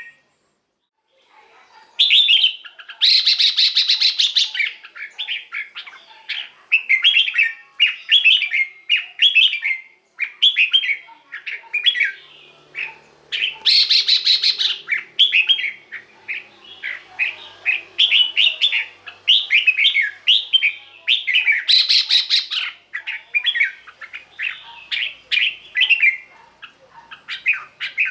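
Red-whiskered bulbul song: rapid, repeated short chirping and warbling phrases that begin about two seconds in. Three louder, harsher bursts break in, a few seconds in, in the middle, and after about twenty seconds.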